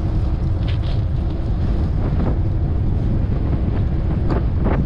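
Steady wind rumble on the microphone from riding a bicycle along a city street, with street and traffic noise beneath it.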